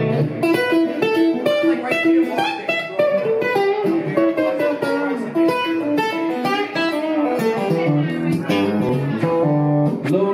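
Electric guitar played live as a solo instrumental intro, a steady run of quickly picked notes and chords.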